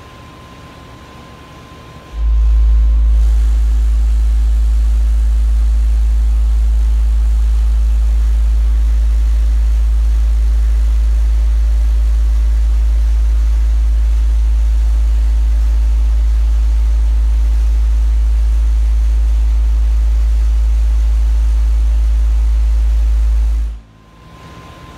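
A truck's car-audio subwoofers play a steady low bass test tone for about 21 seconds, heard from outside the closed truck. It starts abruptly about two seconds in and cuts off suddenly near the end. It is an SPL test pushing the system to about 146 dB on roughly 217 watts, double the power that gave 143 dB, to check whether doubling power gains 3 dB.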